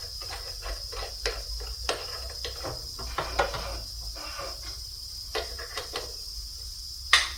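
Metal parts and hand tools clinking and tapping irregularly as a workpiece is handled and set up on a machine, with a louder knock near the end, over a steady shop hum and a high, thin whine.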